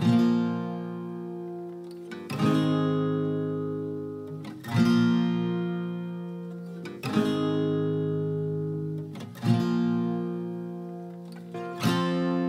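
Background music: acoustic guitar playing slow strummed chords, one about every two and a half seconds, each left to ring out and fade.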